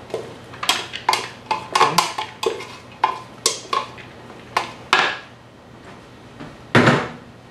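A wooden spoon scrapes and knocks cooked rice out of a stainless steel pot into a wooden bowl: a quick run of sharp clacks and taps, then a pause and one louder knock near the end.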